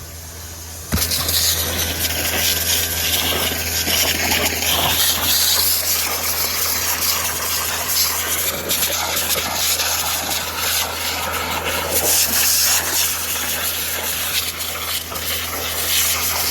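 Fire hose spraying water hard into a smouldering debris pile: a loud hiss of spray and steam that starts abruptly about a second in and keeps on, over a steady low drone.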